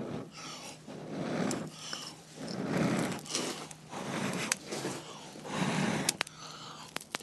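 A person blowing in repeated long breaths on glowing char-cloth tinder in a nest of straw, coaxing it into flame. A few sharp crackles from the catching straw come near the end.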